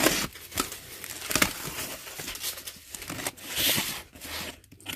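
Utility knife slicing through packing tape on a cardboard box, then the tape tearing and the cardboard flaps being pulled open: a run of short scrapes and rustles, with a longer tearing rasp a little past halfway.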